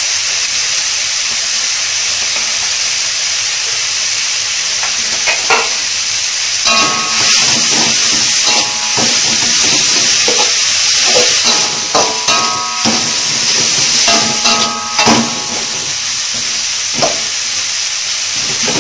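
Sliced onion and ground chilli paste sizzling steadily in an aluminium wok. From about a third of the way in, a metal spatula scrapes and clinks against the wok in repeated stirring strokes.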